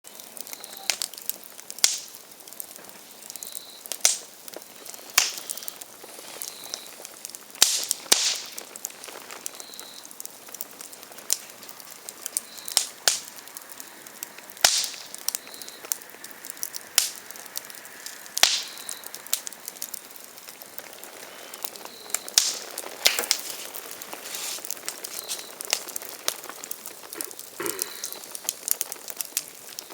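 Open wood fire crackling, the burning firewood giving off a steady run of small ticks and irregular sharp pops, a dozen or so of them much louder than the rest.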